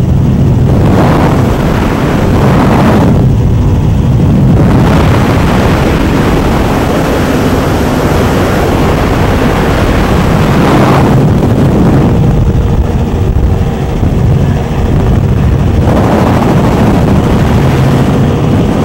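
Engines of Donzi ZR go-fast powerboats running at high speed, loud and steady, with a rush of wind and water that swells and fades about three times.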